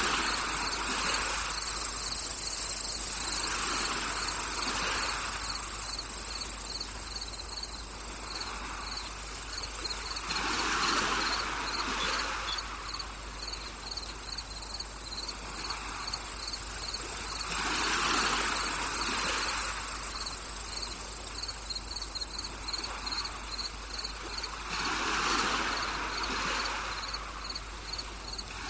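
Night insects, crickets among them: a steady high-pitched trill with a regular pulsing chirp beneath it. A soft rushing sound swells and fades every several seconds underneath.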